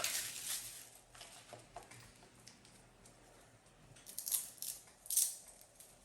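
Faint rustling and handling of packaging as a charging cable is taken out of the keyboard box, with two louder brief rustles about four and five seconds in.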